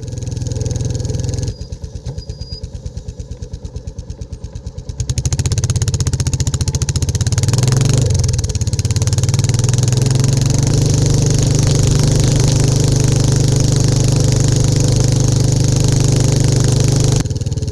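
Royal Enfield Classic 350's single-cylinder engine and exhaust under way. It beats out a slow, even thud for a few seconds, then grows louder as it pulls away, rising in pitch about eight seconds in, and settles into a steady cruising note that drops off near the end.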